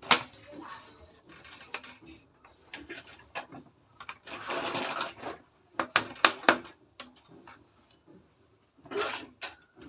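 Plastic toy kitchen pieces being handled: a run of sharp clicks and knocks, with a rustle lasting about a second about four seconds in.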